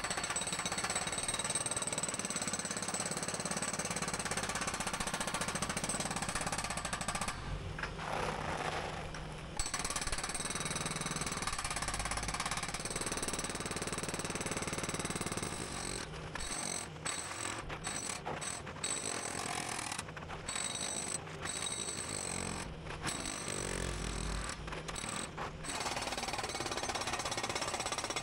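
Hydraulic breaker on a Kubota skid steer pounding old concrete, a rapid continuous hammering over the machine's running engine. It stops for about two seconds a quarter of the way in and for several brief moments later as the chisel is repositioned.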